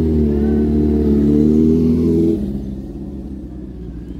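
Motor vehicle engine running close by with a steady engine note that cuts off abruptly about two and a half seconds in, leaving a low traffic rumble.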